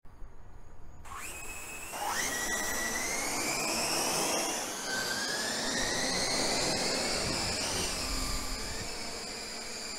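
FPV quadcopter's brushless motors whining: the pitch sweeps up sharply about one and two seconds in, then holds a high whine that drifts slowly up and down.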